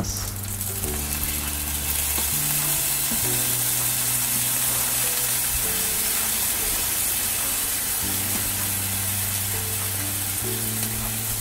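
Eggplant pieces sizzling in hot oil in a skillet, with soy sauce and oyster sauce just added to the pan; a steady hiss. Soft background music of held low notes plays underneath.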